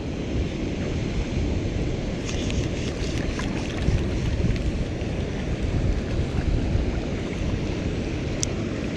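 Steady wind noise buffeting the microphone, with a few faint light clicks.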